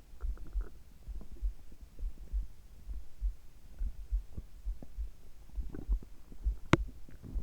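Human heartbeat heard close up through the body: steady, evenly paced lub-dub thumps, with a few faint gurgles and one sharp click near the end.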